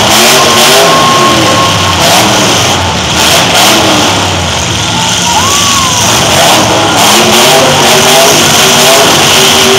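Engines of several demolition derby pickup trucks revving up and down over one another as they drive and ram in the arena, loud and distorted.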